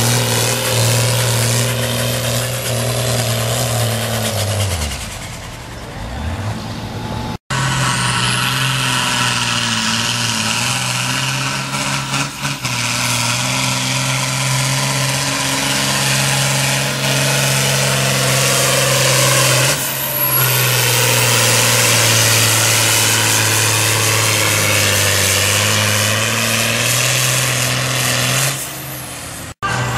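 Tractor diesel engines under full load in a tractor pull, each dragging a weight sled. First a Ford tractor's engine runs hard and then winds down about five seconds in. Then a John Deere's engine runs at steady high revs, dipping briefly partway through.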